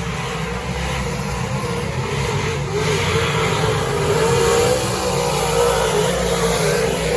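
Dirt-track modified race car engine running hard at high revs, its pitch wavering up and down with throttle and getting louder about halfway through.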